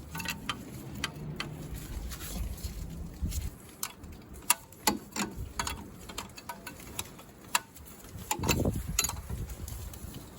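Scattered metallic clicks and taps of a wrench working the fittings on a diesel engine's injector lines, loosening them to bleed air from the fuel system. Low rumbles come and go, the strongest near the end.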